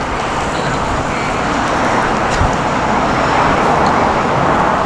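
Road traffic on a city street: a steady rushing noise that grows a little louder partway through, as a vehicle draws near.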